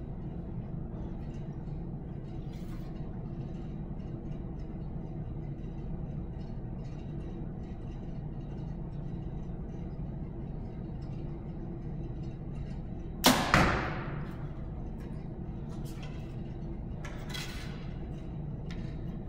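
A 2014 PSE Dominator compound bow shot: a sharp snap of the string about two-thirds of the way in, then a second sharp hit a fraction of a second later as the arrow strikes the target. A steady low room hum runs underneath.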